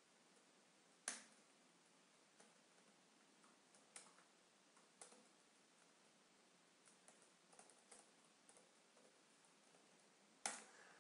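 Faint, scattered keystrokes on a computer keyboard, with a sharper click about a second in and another near the end.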